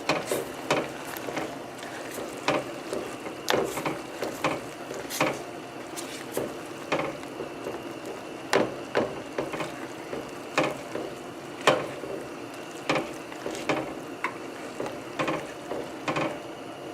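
Linguine being stirred and tossed in a pan of creamy sauce, the utensil knocking and clicking against the pan every half second to a second, over a steady sizzle.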